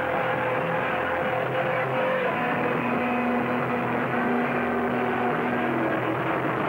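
Punk-metal band playing live: electric guitar and bass over drums, with long held notes ringing over the steady wall of sound.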